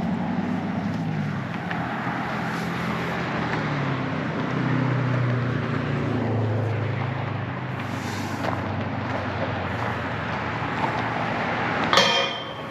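Road traffic passing, with engines humming and rising and falling in pitch as the cars go by, over a steady tyre noise. A short sharp sound cuts in near the end.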